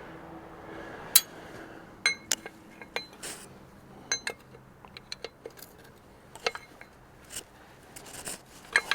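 Irregular metallic clinks and taps of metal parts and tools being handled, each a sharp click with a brief ring.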